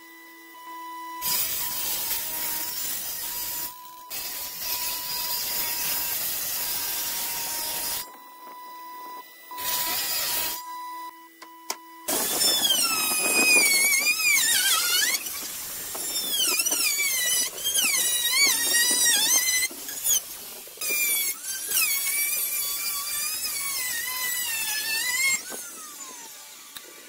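Table saw running and cutting a hardwood board in several passes, broken by short gaps. About twelve seconds in, a handheld plunge router takes over, trimming the curved edge of a thick board with a high, squealing whine whose pitch wavers as the cut loads it. It falls away near the end.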